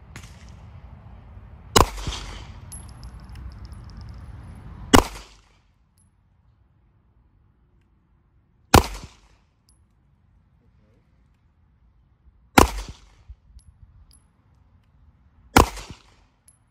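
Smith & Wesson M&P Shield Plus pistol fired five times in slow, deliberate single shots, about three to four seconds apart. Each shot is a sharp crack with a short echo.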